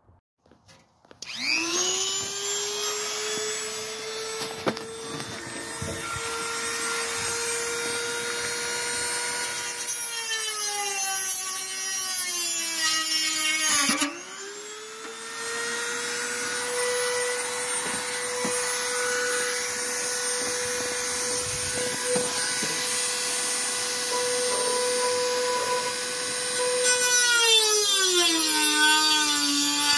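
Corded high-speed rotary tool running and cutting into a plastic body panel: a steady high whine whose pitch sags twice as the bit bites into the plastic, with a short break about halfway.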